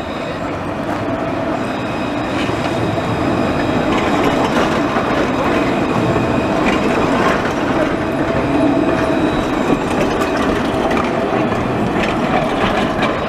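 Alstom Citadis tram passing close by, its wheels running on the rails, growing louder over the first few seconds as it comes alongside, with a steady high tone running through the rumble.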